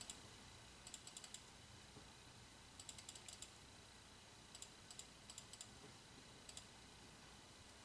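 Faint computer keyboard clicks in four or so short clusters, over near silence.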